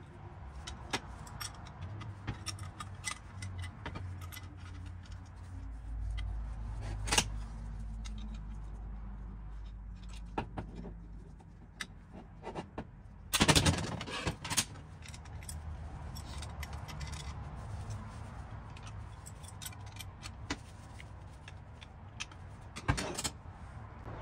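Metal hand tools clinking, tapping and scraping against the bill hook's metal collar and a steel workbench as the head is fitted back on, with a quick cluster of sharp knocks about halfway through and single louder knocks earlier and near the end. A low steady hum runs underneath.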